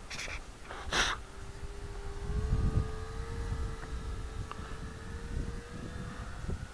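Radio-controlled model Cessna's motor and propeller in flight, a steady whine that drifts slightly up in pitch. Two brief rushes of noise come in the first second.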